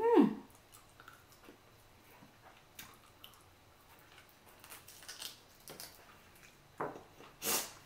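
Close-miked eating sounds of boiled chicken being picked and sucked off the bone: small wet mouth clicks and chewing, with two louder slurping sucks near the end. A brief hummed "mm" right at the start.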